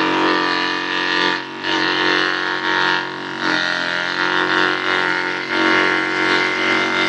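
Small wooden-box chopping machine driven by an electric motor, running steadily with a droning hum while shredding papaya leaves. The sound dips briefly about three times, around a second and a half in, past the three-second mark, and near five and a half seconds.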